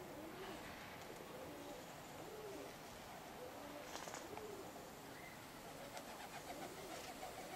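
Pigeons cooing faintly, with several short rising-and-falling coos overlapping and repeating.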